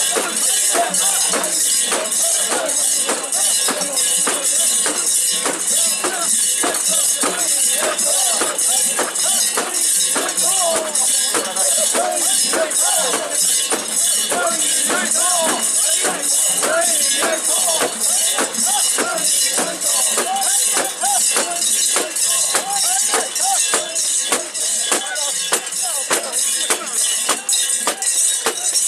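Metal ornaments and bells of a portable shrine (mikoshi) jingling in a steady rhythm as the bearers bounce it, over many voices chanting and calling.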